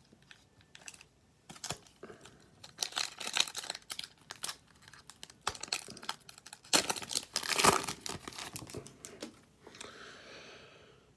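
Hockey card pack wrapper crinkling and tearing as it is opened, in irregular bursts that are loudest about seven to eight seconds in, with cards being handled.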